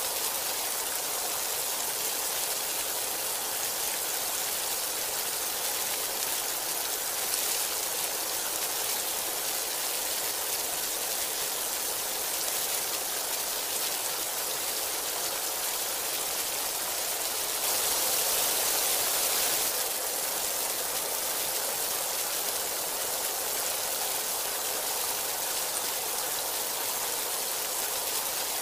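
Heavy rain pouring down in a steady, dense hiss, with a brief heavier surge lasting about two seconds roughly two-thirds of the way through.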